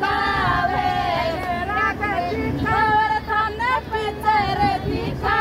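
Women singing a Rajasthani sitthna, the teasing wedding folk song aimed at the in-laws, in a held, gliding melody, with hand-clapping.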